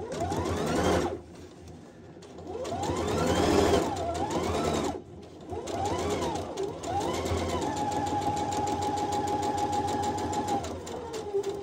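Alfa electric sewing machine stitching a seam in several runs: the motor whine rises and falls with speed as it starts and stops, then runs steadily for a few seconds before slowing near the end.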